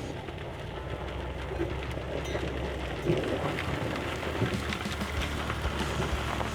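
A vehicle engine running with a steady low hum, under a continuous gritty hiss scattered with light ticks, and louder knocks about three and four and a half seconds in.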